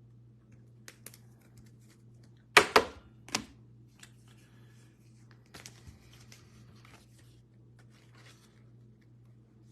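Trading cards being sleeved and handled on a table: light rustles and clicks, with a sharp double tap about two and a half seconds in and another a moment later, over a low steady hum.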